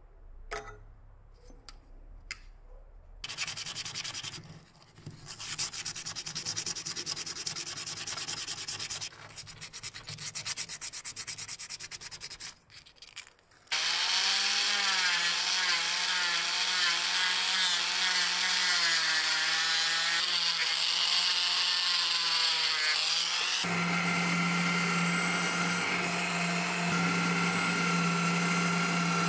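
A few light clicks of a small wire being bent with pliers. Then a small rotary tool's abrasive wheel runs against a thin metal rod, grinding in stretches, its motor pitch wavering as it is loaded. About three-quarters of the way in, a drill mounted in a drill stand starts, running at a steady pitch as it bores into a wooden block.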